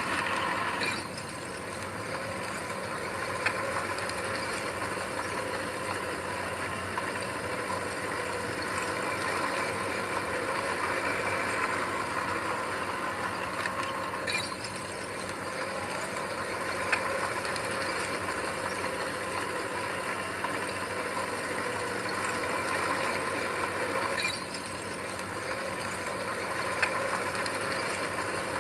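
Heavy earth-moving machine's engine running steadily, with a few sharp metallic clicks and clanks.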